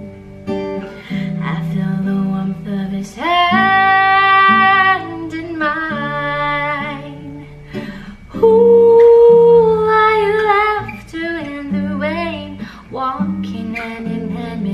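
A woman singing a slow ballad to her own strummed acoustic guitar, holding two long notes, the second and loudest starting a little past halfway.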